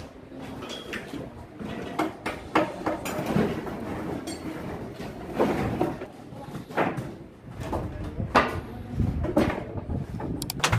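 Irregular knocks, clacks and scrapes of timber formwork panels and boards being handled and set in place against steel props.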